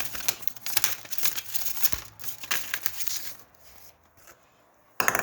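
Packaging crinkling as it is handled, with dense fast crackles that die away about three seconds in. A brief loud sound comes near the end.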